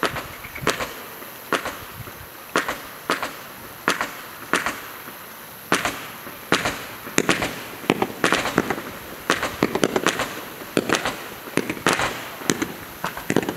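Low-noise 170-shot firework barrage cake firing shot after shot, each a sharp crack, at about two shots a second, with a busier stretch of pops and crackle in the middle.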